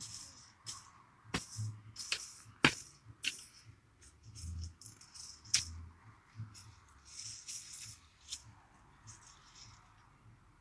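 Hand hoe working weedy garden soil: several sharp knocks and a few dull thuds of the blade, with bursts of rustling as weeds are pulled up and shaken.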